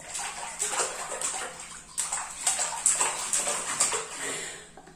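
Water splashing in a plastic baby bathtub as a baby slaps at it, a string of irregular splashes that die away near the end.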